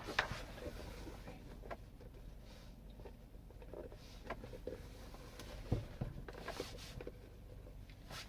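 Scattered light clicks, taps and rustling of hands handling wiring and plastic dash parts during a truck stereo install, with a few sharper knocks.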